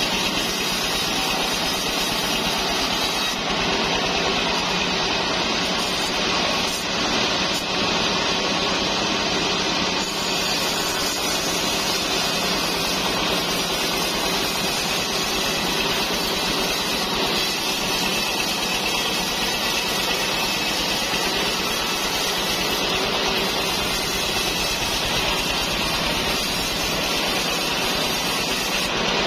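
Sawmill band saw running and ripping through a trembesi (rain tree) beam lengthwise to cut rafters, a loud, steady, unbroken sawing noise.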